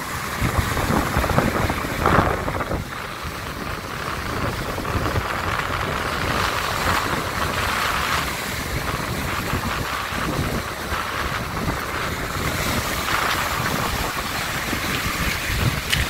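Stormy sea surf breaking on a pebble beach, foaming water washing up over the stones, the noise swelling and ebbing with each wave. Wind buffets the microphone.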